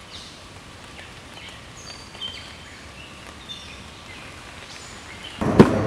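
Quiet woodland ambience with a few short, high bird chirps. Near the end it gives way suddenly to louder, steady background noise with one sharp click.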